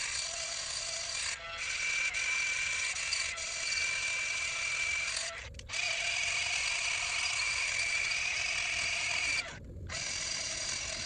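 Cordless angle grinder with an abrasive disc running against oak, smoothing the sides of a chainsaw-cut block. It is a steady high whine, cut off briefly about halfway through and again near the end.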